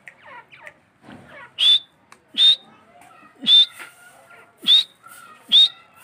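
Grey francolin calling: five loud, sharp whistled notes about a second apart, starting a little under two seconds in.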